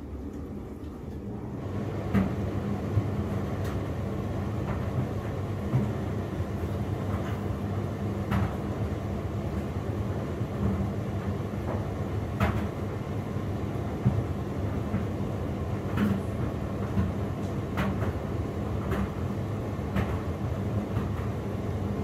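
Hotpoint WMD960 Ultima washing machine on a 60° cottons wash. The drum motor hum comes in about two seconds in and runs steadily as the wet load tumbles, with sharp knocks every second or two.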